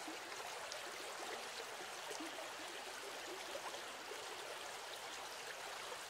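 Faint, steady running water, like a small stream or trickle, with small gurgles scattered through it.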